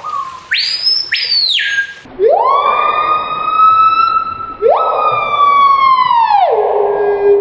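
Screaming piha calling: loud whistled notes, two short high ones sliding down, then two long ones that swoop up and hold, the last falling away low near the end.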